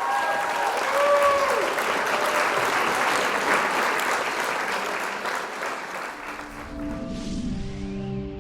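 Congregation applauding, with a few voices calling out in the first two seconds. Music with long held notes fades in near the end as the applause thins.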